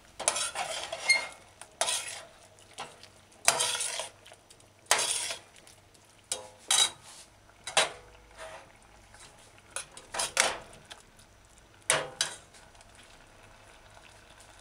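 Metal spoon stirring coconut-milk stew in a stainless-steel saucepan: a string of uneven scrapes and clinks against the pan, stopping near the end.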